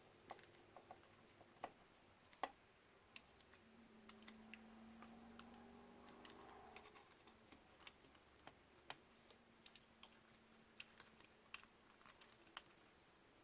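Faint scattered clicks and taps of small parts and a small tool being handled while fitting a drone camera's ribbon cable and screws. The clicks are irregular and grow more frequent near the end, with a faint low hum for a few seconds in the middle.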